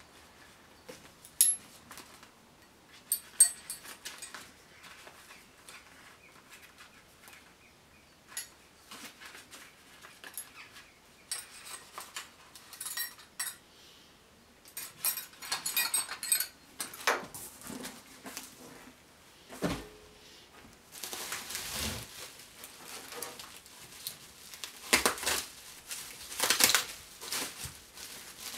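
Small metal tools clinking inside a plastic bag, with a few sharp clinks early on and light plastic rustling. Bubble wrap crinkles over the last several seconds as it is pulled open.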